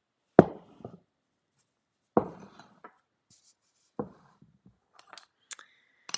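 Cones of yarn being handled and set down: three thumps about two seconds apart, the first the loudest, then a few light clicks and rustles near the end.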